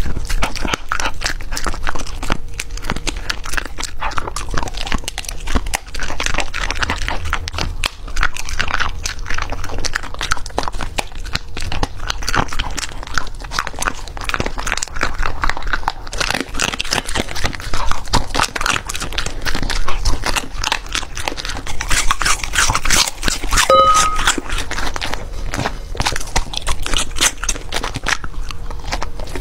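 Golden retriever crunching and chewing hand-fed food, closely miked: a dense, unbroken run of bites and crunches as it works through a hard dried chew stick.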